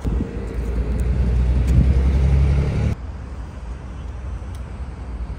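Road traffic on a city street: a vehicle's engine rumbles loudly and low for about three seconds, then cuts off suddenly, leaving quieter steady traffic noise.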